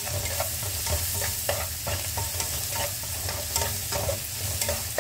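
Stir-frying: a spatula scrapes and knocks against a frying pan in short, uneven strokes over a steady sizzle of garlic, shallots and chilli in oil, with a low steady hum underneath.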